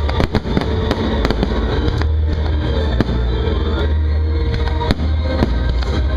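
Aerial firework shells bursting and crackling, with a quick cluster of sharp bangs in the first second and a half, then single bangs scattered through the rest. Under them, loud music with a heavy bass plays throughout.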